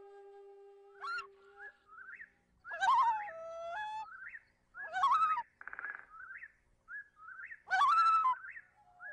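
Background instrumental music led by a flute: a long held note ends about a second and a half in, followed by short sliding, chirp-like whistled notes. Three louder ornamented phrases come about three, five and eight seconds in.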